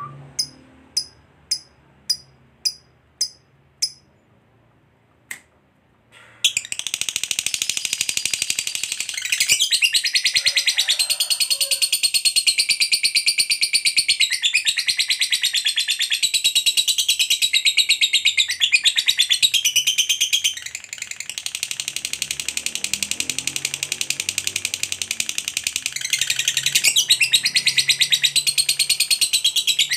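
Lovebird giving single sharp chirps, about two a second, then from about six seconds in breaking into a long, unbroken, fast, high-pitched chattering trill, the 'ngekek panjang' song. The trill eases slightly in level past the twenty-second mark and then picks up again.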